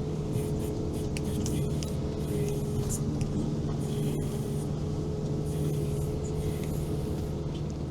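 Engine of a six-wheeled Veter all-terrain vehicle running steadily under way, with scattered light clicks and knocks.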